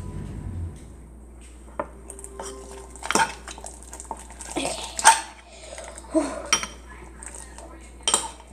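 Metal spoon stirring thick slime in a bowl, with irregular clinks and scrapes of the spoon against the bowl's rim and sides; the loudest knock comes about five seconds in.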